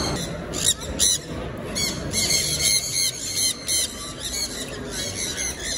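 Sun conures calling: a rapid run of short, shrill squawks, a dozen or more in a few seconds, some overlapping.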